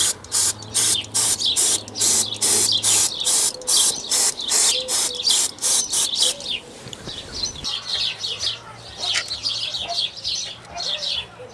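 Aerosol can of engine cleaner sprayed through its straw into an open gearbox in short, quick hisses, about three a second, stopping about six seconds in. After that, birds chirp.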